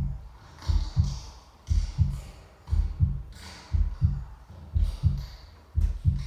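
Heartbeat sound, a low double thump (lub-dub) repeating steadily about once a second.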